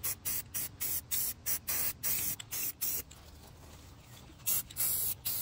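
Aerosol spray paint can sprayed in a quick run of short bursts, about three or four a second, then a pause and a few longer sprays near the end.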